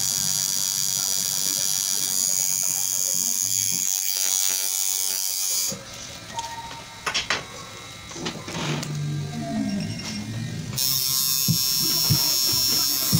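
Tattoo machine buzzing steadily as it runs, cutting out about six seconds in and starting up again about five seconds later.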